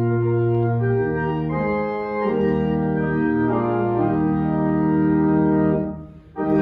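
Organ playing a hymn introduction in held chords that change about once a second, breaking off suddenly about six seconds in.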